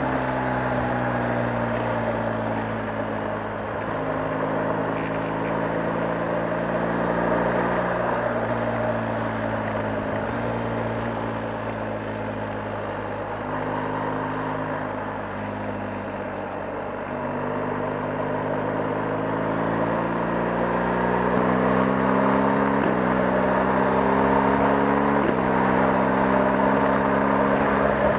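BMW R 1250 GS's 1254 cc boxer-twin engine running under way, its note slowly falling and rising with road speed. Late on it accelerates through two gear changes, each heard as a sudden drop in pitch.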